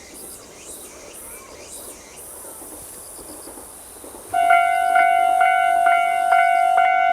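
Railway level-crossing warning bell starting up about four seconds in: a ringing tone struck about twice a second, warning that a train is approaching. Before it, a quieter high-pitched buzz pulses and then holds steady.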